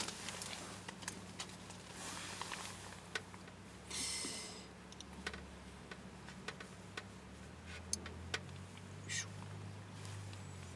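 Light scattered clicks and taps of food being prepared by hand for a hot sandwich maker, with a brief hissing rustle about four seconds in and a shorter one about nine seconds in. A faint steady low hum runs underneath.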